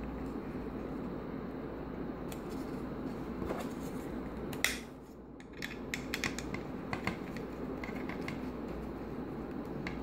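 Small clicks and taps of hands fitting a black swivel antenna to a plastic USB WiFi adapter, one sharper click about halfway through and several lighter ones just after, over a steady low hum.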